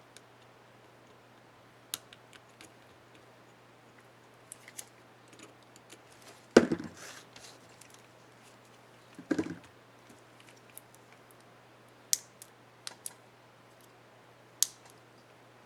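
Small plastic clicks and taps from an HP dm4 laptop's Enter keycap and its retainer clips being handled and fitted onto the keyboard. Two louder knocks come about six and nine seconds in, with a few sharp clicks near the end.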